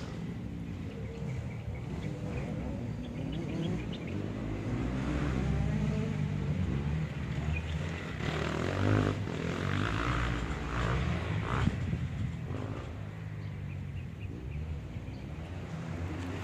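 Motor vehicle engines running, growing louder around the middle with some rising and falling revs.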